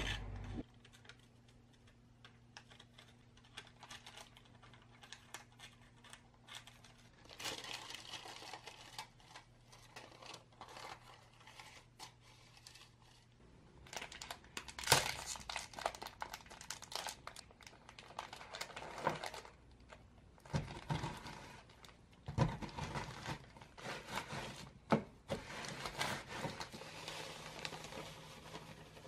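Crinkling and rustling of plastic packaging as a packet of Oreo cookies is opened and handled, with scattered sharp clicks and knocks, growing louder about halfway through.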